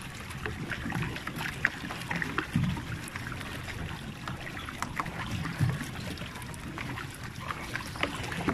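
Water bike being pedalled across a lake: water splashing and scattered light clicks, with a few short low thuds about every two to three seconds.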